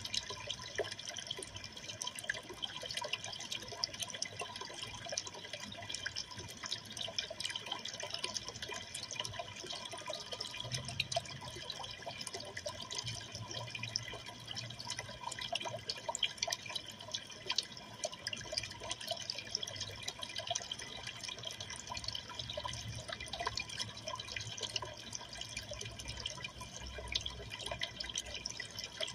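Aquarium water trickling and bubbling steadily, with a constant patter of tiny drips and splashes.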